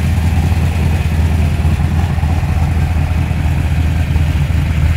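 Ford XD Falcon's engine rumbling steadily at low revs as the car rolls slowly past, a tough sounding note.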